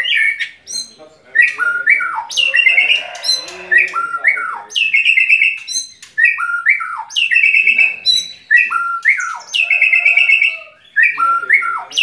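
A white-rumped shama (murai batu) singing loudly: a long run of varied phrases of whistled notes that slide down in pitch and fast trills, with brief gaps between phrases.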